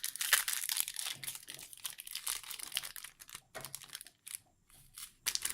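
Crinkling of a foil trading-card booster pack wrapper being handled. The crinkling is dense for about three seconds, then thins out and falls nearly quiet just after four seconds in.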